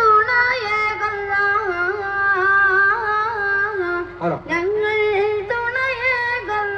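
A single high voice singing a slow, drawn-out melody with long held notes and ornamented turns, with a short break about four seconds in.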